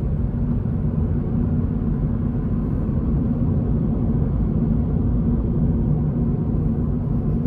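Toyota GR86's flat-four engine and road noise heard from inside the cabin while cruising, a steady low drone.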